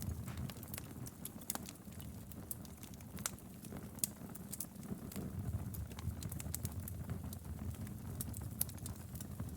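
Wood fire in a fireplace crackling: many irregular sharp pops and snaps from the burning firewood over a steady low rumble of the flames.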